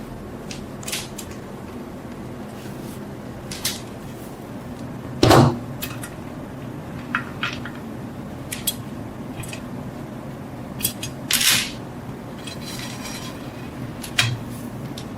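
Scattered short clicks and knocks of metal objects being handled and set down on a work surface, over a steady low hum. The loudest knock comes about five seconds in.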